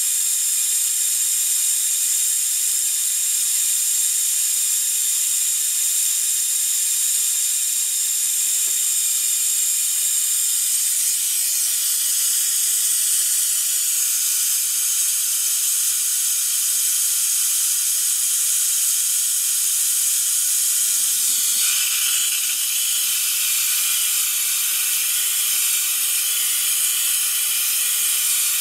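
Brake fluid evacuator hissing steadily as its tube sucks brake fluid out of a 2004 Ford F-150's vacuum brake booster. The fluid got there by leaking out of the back of the master cylinder. The hiss shifts in tone about two-thirds of the way through.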